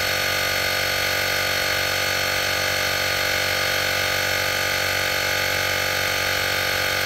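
Portable digital air compressor (model JM-8817) running steadily as it inflates a tire, a constant motor-and-pump drone with several steady tones and no change in pitch or level. A slow fill.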